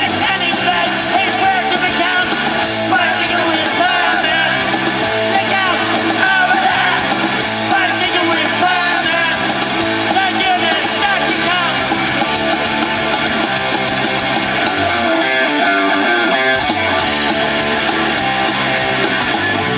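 Rock band playing live: a male lead singer over electric guitars, bass guitar and a drum kit. About three quarters of the way through, the bass and drums drop out for a moment and then come back in.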